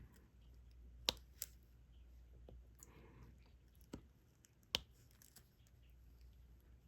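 Faint, scattered clicks of a diamond painting stylus tapping drills onto the canvas and picking them up from the tray, with four sharper clicks among softer ones.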